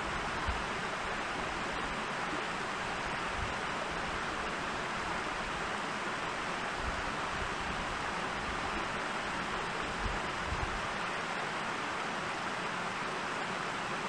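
Steady, even outdoor hiss with a few brief low rumbles of wind on the microphone; no bird calls or bill-clattering.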